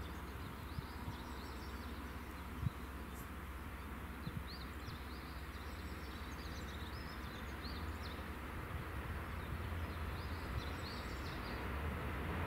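Quiet rural trackside ambience: small birds chirping here and there over a steady low rumble, which grows slightly louder toward the end as a distant train approaches.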